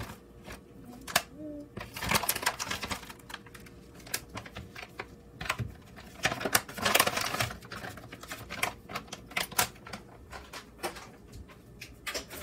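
Crinkling of a plastic stand-up pouch and irregular light clicks and scrapes as brown sugar substitute is scooped out and tipped into a small glass bowl of ketchup. The rustling comes in several short spells, the loudest about two and seven seconds in.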